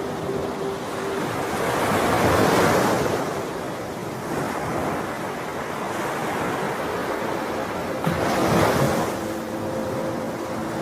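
Ocean waves washing ashore, surging twice: about two seconds in and again near the end, over a faint backing of sustained music notes.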